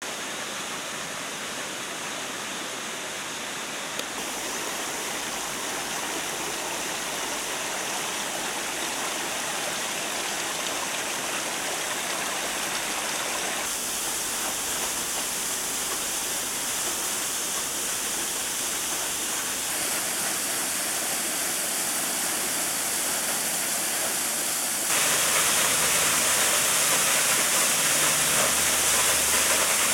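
Small waterfall pouring onto rocks: a steady rush of falling and splashing water that steps louder several times and is loudest in the last few seconds.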